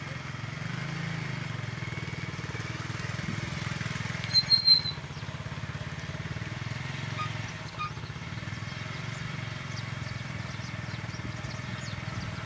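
Motorcycle engine running steadily at low revs. About four seconds in, two short, loud, high-pitched chirps sound over it.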